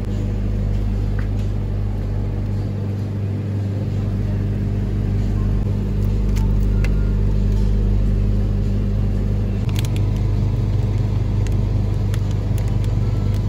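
Supermarket display freezers giving a steady low electrical hum, unchanging throughout.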